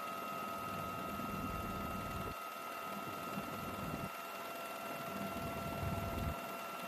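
Steady high whine of helicopter turbine engines, with a low rumble underneath that cuts in and out several times.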